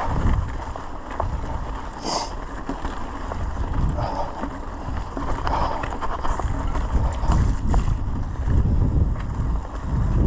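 Wind rumbling on the microphone while a mountain bike rolls along a dirt singletrack, with tyre noise and small clicks and rattles from the bike.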